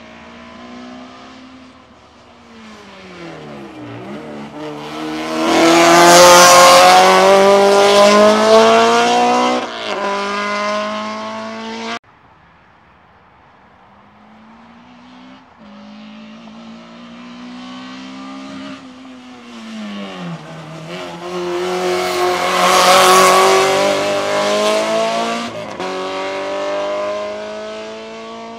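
Two hillclimb race cars, one after the other, accelerating hard past at full throttle. Each engine's pitch climbs as it comes up, grows loud and then fades. The first is cut off suddenly about twelve seconds in.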